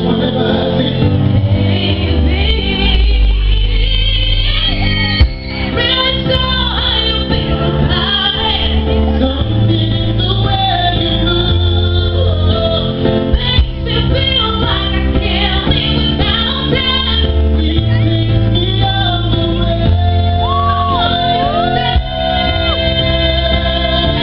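A woman singing a slow pop ballad live into a microphone, with held and sliding notes over an accompaniment with a steady low bass, heard through the stage sound system.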